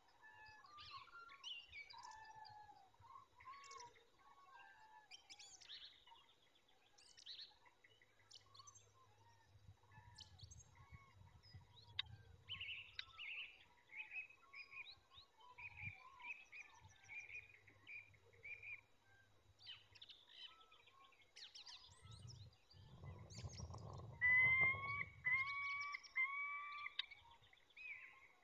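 Small woodland birds chirping and singing throughout. About two-thirds of the way in, with rustling close to the microphone, a series of about four loud, hooked calls stands out: a peregrine falcon calling on its nest, the calls used to invite its mate to the scrape.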